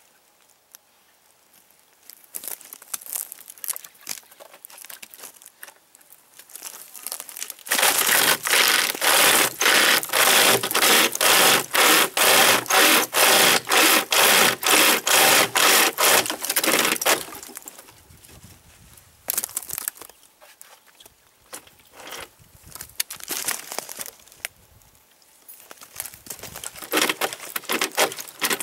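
Homemade pocket survival chainsaw, a chainsaw chain pulled back and forth by webbing handles, rasping through a dry dead branch in quick, even strokes, about two to three a second. The sawing starts about a quarter of the way in after some quieter handling, pauses for several seconds past the middle, and picks up again near the end.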